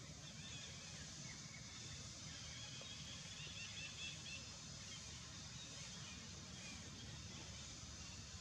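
Faint outdoor ambience: a steady low rumble and hiss, with a few faint, short bird chirps scattered through the first half.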